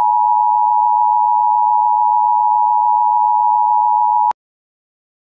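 Television emergency broadcast tone: one steady, loud, pure beep held for about four seconds, then cut off abruptly.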